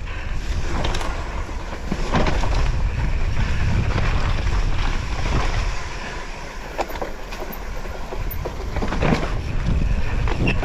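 Downhill mountain bike on a rough trail: wind buffeting the microphone with a steady rumble, broken by several sharp knocks and rattles.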